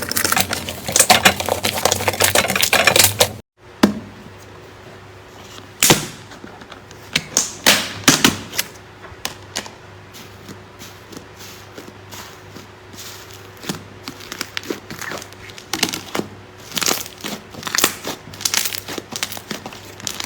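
Slime being squeezed and pressed by hand: dense crackling and clicking, then after a brief break, scattered sticky pops and clicks over a faint steady hum.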